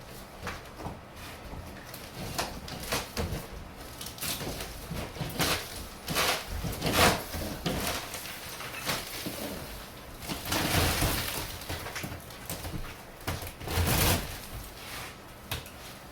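Demolition of cement backer board with hand tools: irregular knocks and cracking as the board is broken and pried off, with a longer gritty scrape or crunch about two-thirds of the way through.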